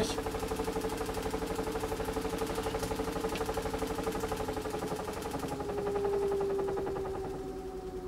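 Tiny Wash compact washing machine on its spin cycle: a steady motor hum with a fast, even vibrating pulse. About five and a half seconds in its pitch sinks a little and the hiss above it fades.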